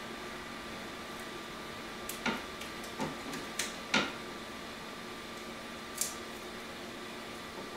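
Blue painter's tape being pressed and smoothed onto a 3D printer's build plate by hand: a handful of short taps and crackles, the loudest about four seconds in, over a steady hum.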